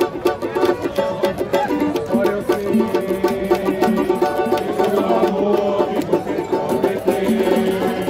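Live samba music: a cavaquinho strumming over pandeiros and other hand percussion, with a quick, steady beat.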